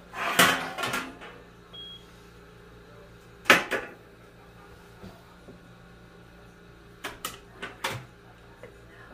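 Wooden spatula scooping dip out of a mixing bowl and into baking pans: a clattering scrape just after the start, one sharp knock about three and a half seconds in, and a quick run of knocks near the end.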